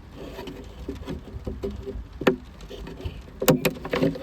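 Plastic clips of a Ford Fiesta rear-light bulb holder being released and handled: scattered light clicks and rattles, with a sharper click about two seconds in and two more in quick succession near the end.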